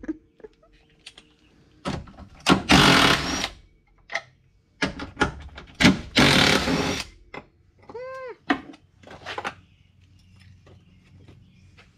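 A power tool run in several short bursts, two of them about a second long, working at a stripped seat bolt. A short squeal rises and falls in pitch about eight seconds in.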